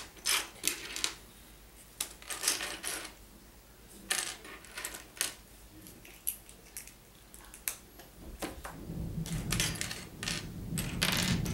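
Small plastic Lego pieces clicking and clattering as they are picked through on a tabletop, with the plastic parts bag crinkling. About eight seconds in, a low rumble of thunder builds up underneath and grows louder.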